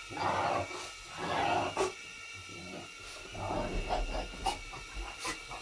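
French bulldog huffing and breathing excitedly in several short bursts, over the steady high whine of a small indoor drone's propellers.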